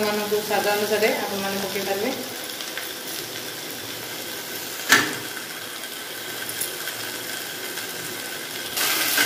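Masala paste sizzling as it fries in oil in a steel kadai, worked with a steel spatula. There is one sharp metal clink about five seconds in, and the sizzle grows louder near the end.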